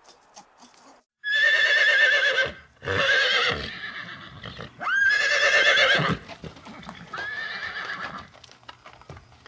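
Horse neighing, four whinnies in a row, each about a second long with a wavering, shaking pitch, the first and third the loudest.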